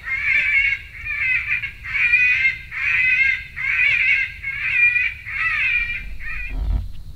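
Electronic predator caller playing a cottontail rabbit distress call to lure coyotes: a run of about eight shrill, wavering squeals, roughly one a second.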